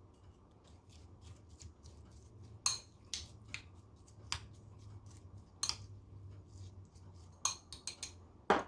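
Kitchen knife cutting through raw vegetables on a cutting board: irregular crisp cuts, a few of them sharper and louder than the rest.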